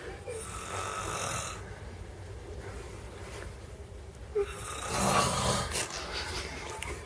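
A sleeping person snoring: two long, rasping snores about four seconds apart.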